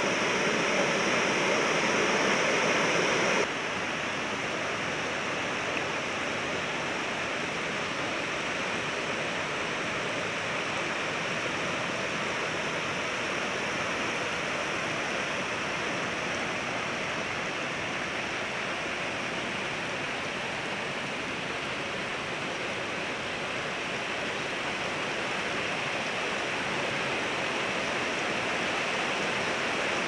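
Steady rush of falling water from a waterfall. It steps down in level about three and a half seconds in, then runs on evenly.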